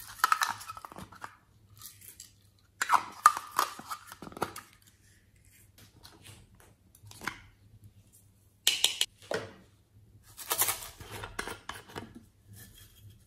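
Small plastic toy containers clicking open and shut and glitter being shaken out of them onto a glass dish, in four short bursts of clicks and rattles.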